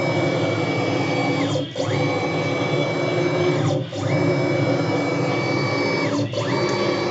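CNC router's stepper-driven axis traversing back and forth: a high whine rises, holds steady for about two seconds, then falls, with a short dip at each reversal, about three passes.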